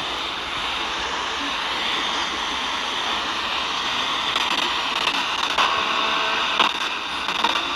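Steady radio static hiss with a few short crackles in the second half.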